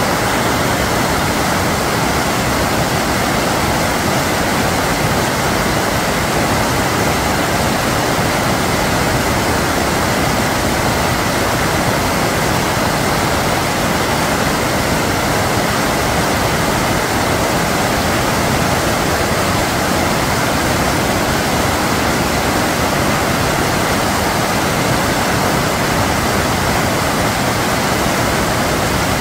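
Rain-swollen stream pouring over low concrete blocks and churning into white water: a loud, steady rush of water with no letup.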